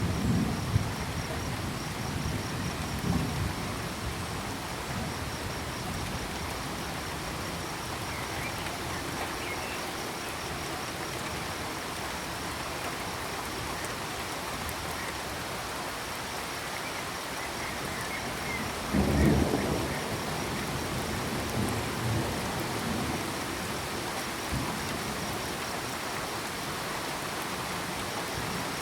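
Steady rain with low rumbles of thunder at the start, around three seconds in and again around nineteen seconds in. A faint high pulsing cricket chirping runs underneath, with a few faint frog calls.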